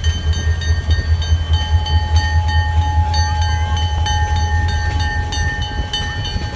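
Diesel freight locomotive passing close by with its cars, its engine giving a loud, deep drone. Several steady high-pitched tones ring above it, starting and stopping at irregular moments.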